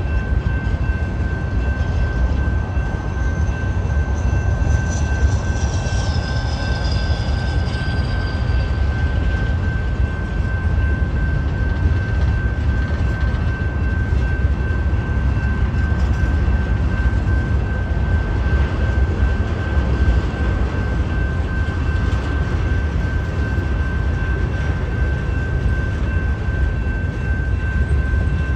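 Freight train cars rolling steadily past a grade crossing: a continuous low rumble of wheels on rail, with a steady high ringing tone over it. A few seconds in, a high squeal slides down in pitch and fades out.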